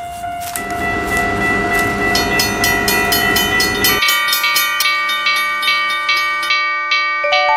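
Railway level-crossing sound effects: a passing train's steady rushing rumble under sustained tones, while a crossing warning bell dings rapidly. About four seconds in, the train noise stops and the dinging goes on, then cuts off at the end.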